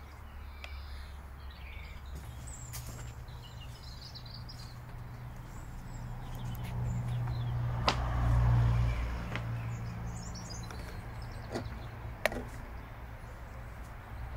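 A few sharp clicks as a hex key and the loop-handle clamp are worked on a Stihl HLA 56 hedge trimmer's aluminium shaft, the two loudest about four seconds apart. Under them runs a steady low rumble that swells about eight seconds in, with faint bird chirps.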